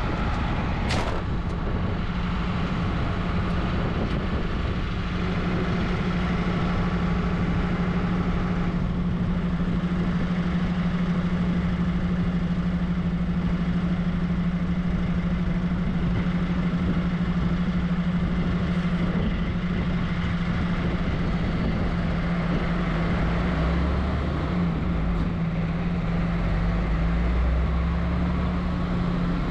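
Heavy truck diesel engine running with a steady drone; a deeper rumble joins in about 24 seconds in.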